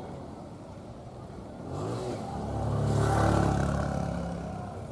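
A motor vehicle passing by, its engine swelling to a peak about three seconds in and then fading away.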